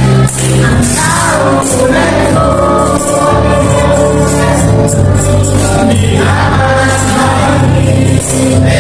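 A group of children and young people singing a worship song together, a leader's voice on a microphone among them, with tambourines jingling along.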